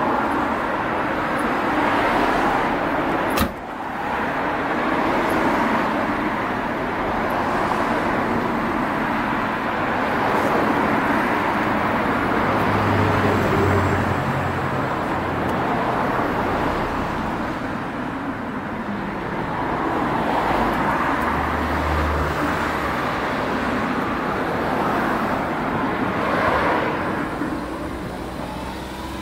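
Steady vehicle noise, an even rushing hum, with one sharp click about three and a half seconds in.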